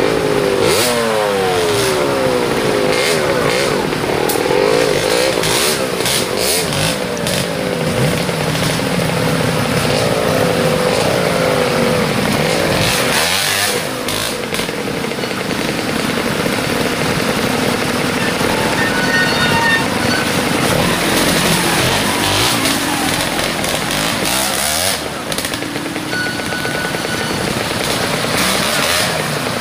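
Trials motorcycle engine revved in repeated short rising and falling bursts as the bike is ridden through a section, busiest in the first dozen seconds, then running more quietly with another burst of revs near the end.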